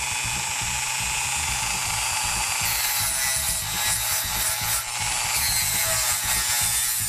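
A Dremel rotary tool fitted with a detail abrasive brush runs with a steady high-pitched whine. About three seconds in, the spinning brush bites into the wood with a scratchy rubbing hiss that breaks off briefly near five seconds and then resumes. The brush is scrubbing tear-out fuzz off the cut edges of a scroll-sawn piece.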